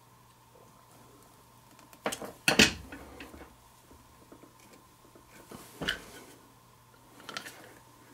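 Small-parts handling on a wooden workbench: a handful of light clicks and taps from a small screwdriver, a brass splice connector and 8-gauge wire, a couple of seconds apart, over a faint steady hum.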